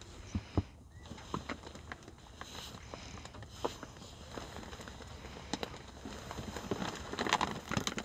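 Scattered soft ticks and rustles in dry hay bedding as bobwhite quail move and peck about, with a louder spell of rustling about seven seconds in.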